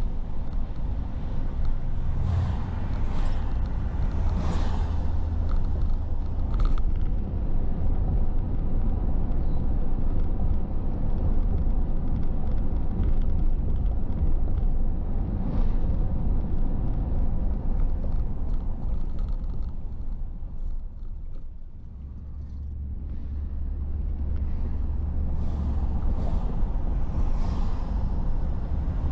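Car driving along a road: a steady low rumble of engine and tyre noise that dips about three-quarters of the way through, then builds again.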